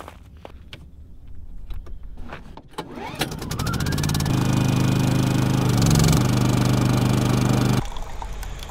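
Footsteps on gravel, then a small portable generator's engine starts about three seconds in, picks up speed and settles into a steady run. The sound cuts off sharply near the end.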